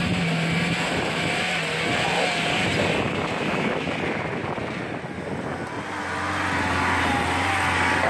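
UAZ off-roader's engine running as it crawls along a rutted, washed-out dirt track. The note is steady at first, eases off slightly partway through, then settles to a lower steady drone from about six seconds in.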